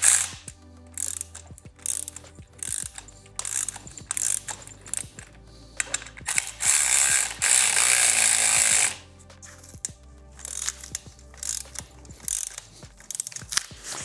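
Ratchet wrench clicking in a series of short strokes, with one longer unbroken run of about two and a half seconds in the middle, as the 6 mm riser clamp bolts are run in on the handlebars.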